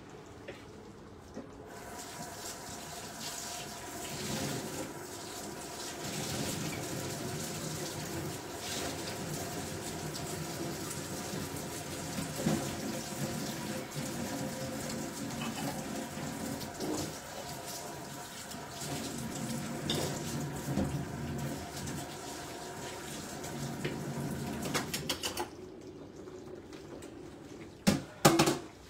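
Kitchen tap running steadily. It comes on about a second and a half in and is shut off abruptly a few seconds before the end, followed by two sharp knocks.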